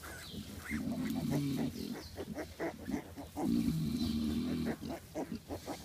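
Nursing sow grunting low and repeatedly in two long spells while her newborn piglets suckle, with short snuffles and clicks from the piglets and the straw between.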